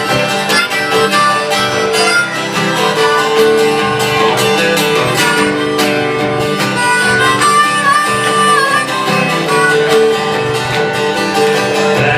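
Live band music: strummed guitar with a held, bending lead melody on top, the instrumental opening of a song before the singing begins.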